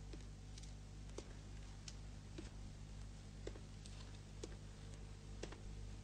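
Faint, irregular sharp clicks, roughly one or two a second, over a steady low hum.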